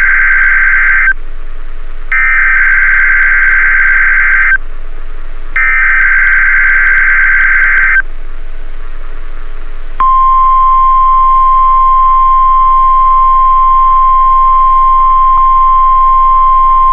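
NOAA Weather Radio broadcast of an Emergency Alert System weekly test: the SAME digital header, a harsh buzzing data burst sent three times, each about two and a half seconds long with a second's pause between. About two seconds of radio hiss follow, then from about ten seconds in the steady single-pitch 1050 Hz weather radio warning alarm tone, which holds to the end.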